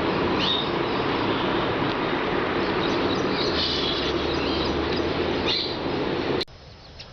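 Small birds chirping in short falling calls over a loud, steady rushing noise. Near the end there is a click, and the sound drops away suddenly.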